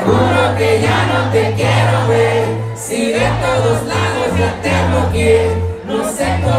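Live norteño music played loud, with the crowd singing along.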